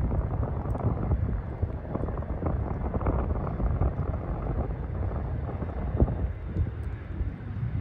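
Wind buffeting the microphone over the low, steady rumble of an Airbus A321neo's CFM LEAP-1A jet engines on final approach.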